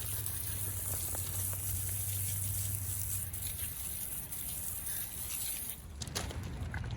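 Water spraying onto wheels as they are washed: a steady hiss with patter. It changes abruptly about six seconds in.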